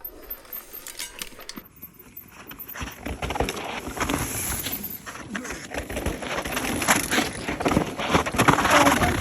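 Mountain bike riding down a dry, loose dirt trail: tyres crunching and skidding over loose dirt and rocks amid a dense clatter of knocks and rattles from the bike. It builds from about two seconds in, is loudest near the end, and cuts off abruptly.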